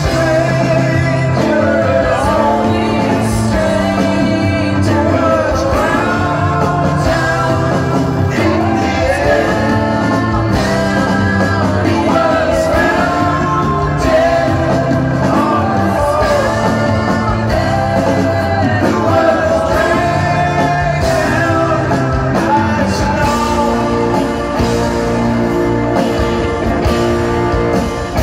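Live rock band performing in a large arena: sung vocal harmonies with held, wavering notes over electric bass, guitars and drums, heard with the hall's reverberation.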